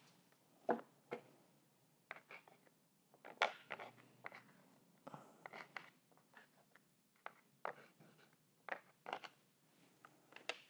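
Faint scratching of a dark drawing stick rubbed over textured, joint-compound-coated paper, in short irregular strokes. The loudest come about a second in and at about three and a half seconds.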